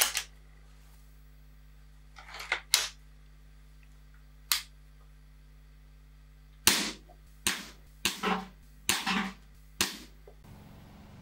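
Weihrauch HW99 break-barrel spring-piston air rifle in .20 calibre being fired and worked: sharp cracks and clacks, about a dozen in all, coming closer together in the second half.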